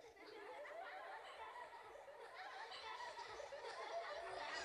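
Faint chatter and laughter of many people's voices, slowly growing louder.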